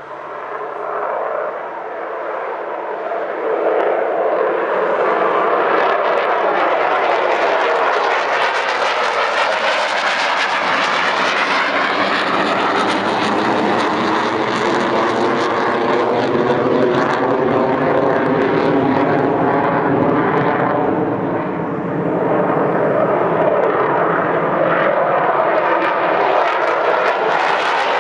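Military fighter jets taking off at full power: a loud, steady jet noise that builds over the first few seconds with the pitch sweeping as each jet passes. It dips briefly about three-quarters of the way through as one jet moves off, then builds again with the next.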